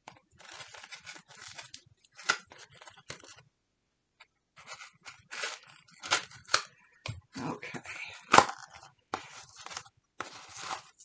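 Paper envelope being rustled and torn open: irregular crinkling and rustling with a pause of about a second partway through, and one sharp snap about three-quarters of the way in.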